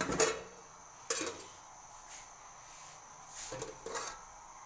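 Lid clanking against a large aluminium pot used as a stove-top stone oven, as it is handled and lifted off. There are a few separate clanks with a short ring, the loudest at the start, another about a second in and a cluster near the end.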